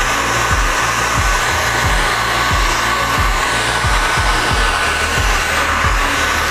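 Handheld hair dryer blowing steadily, with a thin high whine from its motor, drying a coat of airbrushed textile paint on a cotton T-shirt; it cuts off near the end.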